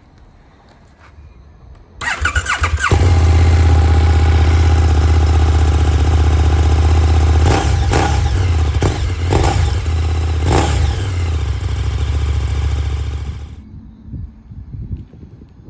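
2022 KTM 1290 Super Duke R's V-twin engine cranked on the starter about two seconds in, catching and idling loud and steady through its exhaust, with a few brief sharp throttle blips midway, then switched off near the end.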